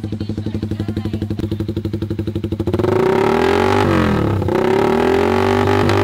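Single-cylinder engine of a Suzuki Raider/Satria 150 motorcycle idling through an aftermarket slip-on exhaust, in quick even pulses. About three seconds in, a louder sustained sound with a steady pitch comes in over it, dipping briefly in pitch about a second later.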